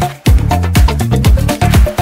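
Background electronic dance music with a steady beat of about two kick drums a second over a bass line. It cuts out briefly just after the start.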